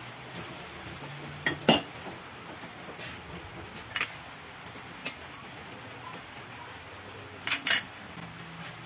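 Metal clinks of aluminium cookware: a handful of sharp knocks, loudest a pair about a second and a half in. Near the end comes a double clatter as the aluminium lid is set down on the wok.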